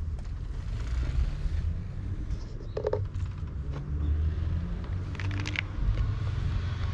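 Steady low rumble of wind buffeting the microphone of a handheld action camera, with a few short scuffs or clicks about three seconds and about five seconds in.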